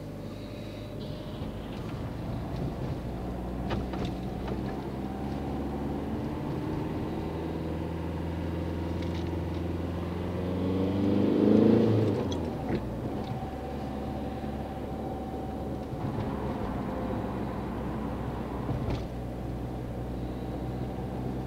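Car engine and road noise heard from inside a moving car. Near the middle an engine sound rises in pitch and grows to its loudest, then drops off sharply.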